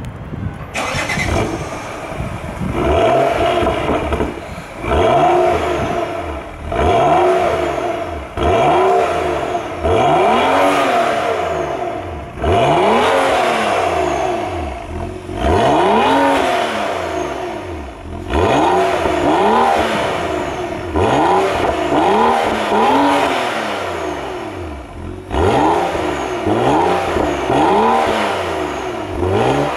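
BMW X6 with a tuned exhaust, its engine blipped over and over while parked: some fifteen short revs, one about every two seconds, each rising sharply in pitch and falling back toward idle, heard at the tailpipe.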